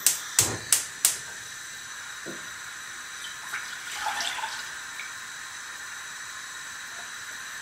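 Gas hob igniter clicking four times in the first second as the burner is lit, then the burner's steady hiss. Around four seconds in, milk is poured from a mug into a stainless steel pot.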